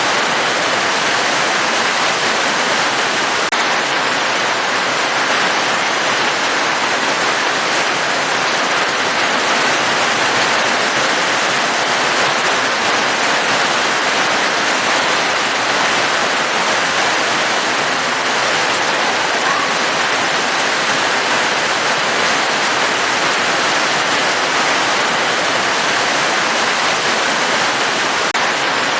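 Steady, dense rainfall: an even, unbroken hiss of falling rain that holds the same level throughout.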